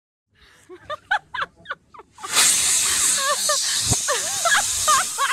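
Air escaping from a rubber balloon through its stretched neck: a few short squeaks, then about two seconds in a loud hiss begins with a squealing, wavering whine over it.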